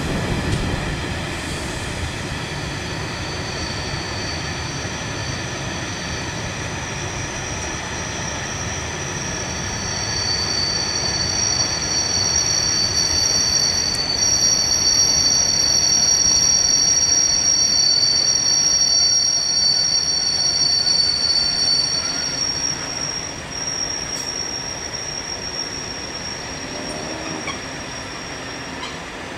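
Steel wheels of a track renewal train's wagons and machine vehicles squealing as they roll round a curve, in two high steady tones that swell in the middle and fade near the end. Under the squeal is a low rumble of wheels on rail that is strongest at the start.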